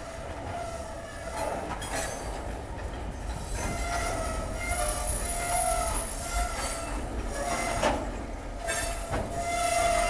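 Cars of a slow-moving freight train rolling past, their wheels squealing in several wavering high tones, with a few sharp clanks and a steady low rumble. The sound grows louder near the end as the diesel locomotive draws close.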